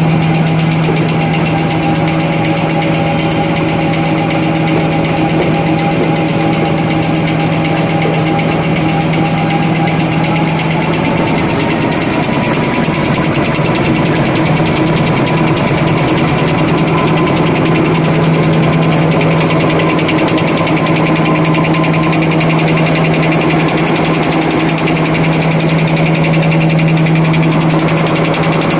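N-fold hard paper towel folding machine running at high speed: a loud, steady mechanical drone with a strong low hum and a fast, even clatter. A higher tone in it rises slightly in pitch about ten seconds in.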